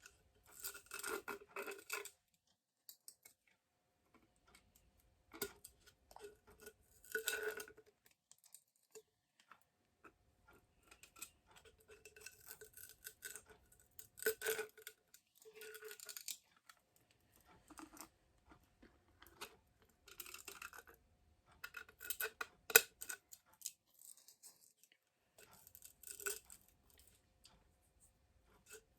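Handling noise from a plastic glowstick: irregular rustling and scraping in short bouts, with scattered clicks, the sharpest about 23 seconds in.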